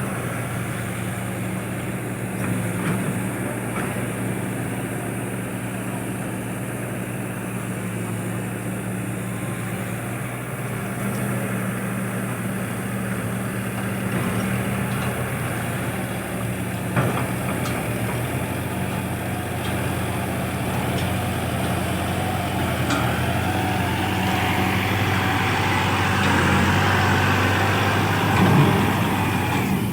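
Excavator's diesel engine running steadily with a low hum, a single sharp knock about halfway through, and the sound growing louder and noisier near the end.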